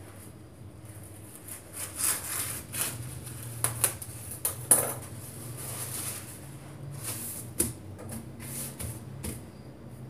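Thin clear plastic bag crinkling and rustling in irregular bursts as it is shaken open and spread flat by hand, over a faint steady low hum.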